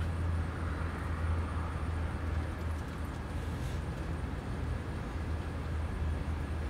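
Steady low rumble of background noise with a faint hiss over it, with no separate events.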